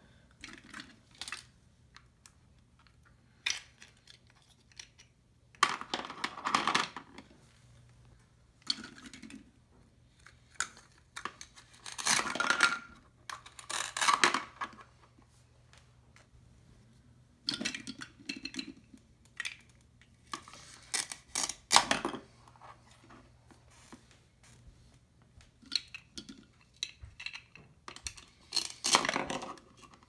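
Velcro-joined plastic toy vegetables being cut apart on a plastic cutting board: several short Velcro rips, each about a second long with pauses between, and clicks and clatters of hard plastic pieces being set down.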